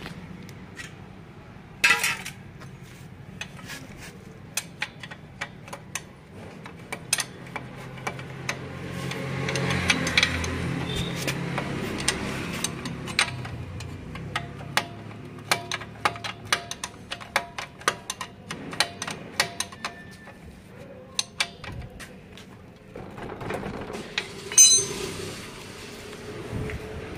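Hand tools clicking and clinking against metal nuts and bolts as scooter parts are refitted, with a steady low hum underneath.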